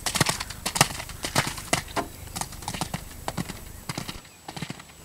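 Hoofbeats of a horse cantering on a wet sand arena: a rolling run of dull thuds that turns faint about four seconds in.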